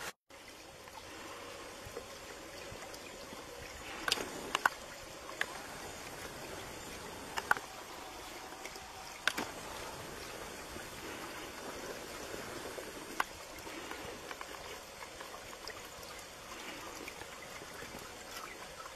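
Frozen lake ice giving about six sharp cracks and pings at irregular intervals, over a steady faint hiss like trickling water.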